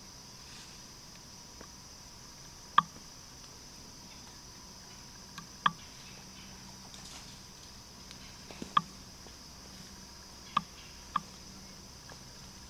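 Steady high-pitched insect chorus of crickets, broken by five sharp clicks or taps at irregular intervals, each louder than the chorus.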